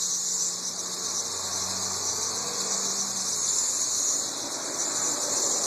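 Chorus of 13-year periodical cicadas singing together: a steady, high-pitched droning hiss with no breaks.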